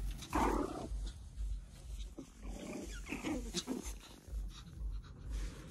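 White Pomeranian puppies barking in small high yaps: one short call about half a second in, then several more between two and four seconds in.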